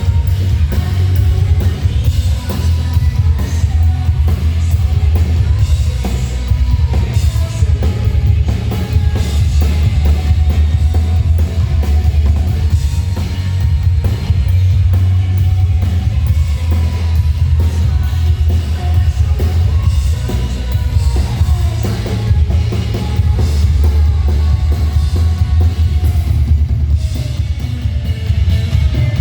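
Live rock band playing a song, drum kit loudest, over a heavy, boomy low end.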